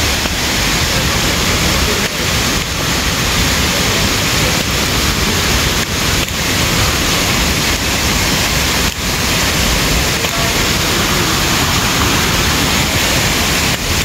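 Juansi Waterfall's falling water, a steady, unbroken rush.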